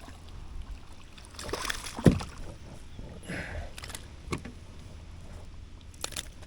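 Knocks and thumps of handling in a small boat while a hooked bass is being landed, the loudest about two seconds in, with a short rush of noise in the middle and a steady low rumble underneath.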